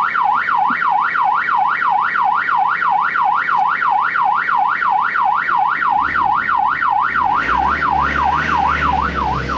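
Electronic siren in a fast warble, its pitch sweeping up and down about three and a half times a second. About six seconds in, the off-road vehicle's engine comes in low underneath and grows louder.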